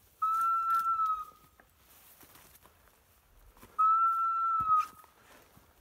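Hunting dog's beeper collar sounding in point mode, meaning the setter has locked on point on a woodcock. Two long, steady, high beeps about a second each, the second one about three and a half seconds after the first.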